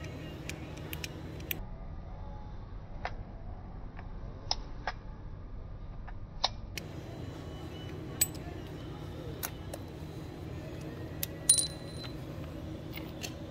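Scattered light metallic clicks and clinks as small scooter drivetrain parts are handled, with a louder ringing clink about eleven seconds in, over a steady low background hum.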